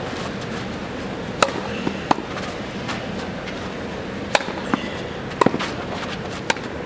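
Tennis ball struck by a racket and bouncing on a clay court: sharp pops at irregular intervals, about seven in all, over a steady background hiss.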